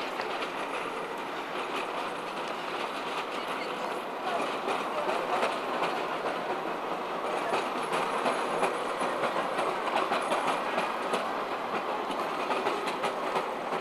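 Low-floor electric tram running past on its rails: a steady rolling rumble with repeated clicks from the wheels over the track, growing louder about four seconds in.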